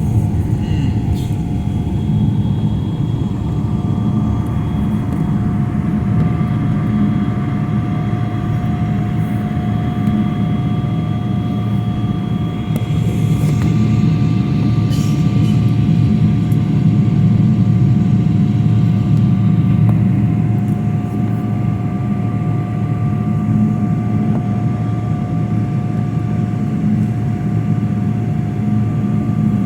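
Jet airliner's engines running, heard inside the passenger cabin: a loud, steady low rumble with a few steady whining tones above it.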